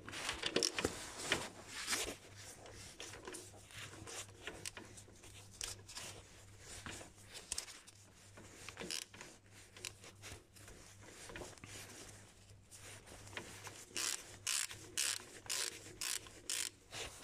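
Ratchet wrench with a 12 mm socket clicking and rubbing as it is worked back and forth to loosen a bolt in a car's engine bay. The clicks are scattered at first, then come quicker and louder in a run near the end.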